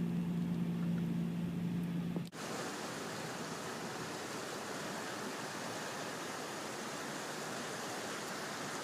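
A flooded river rushing in a steady, even roar of water. For the first two seconds a low steady hum lies under it, then it cuts off.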